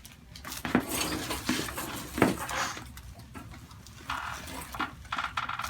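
Handling noise on a chiropractic treatment table while the patient is positioned for a neck adjustment: rustling with two sharp knocks, about a second and two seconds in, and a burst of crinkly rustling near the end.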